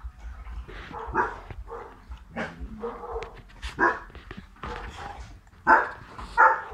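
Dogs barking in a string of short, sharp barks, the two loudest near the end.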